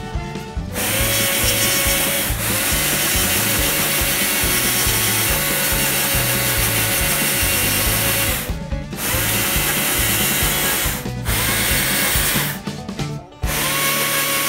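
Stihl battery-powered chainsaw cutting into a cherry log, its motor whining as it cuts. It starts about a second in and goes fully quiet between cuts, stopping and restarting several times rather than idling.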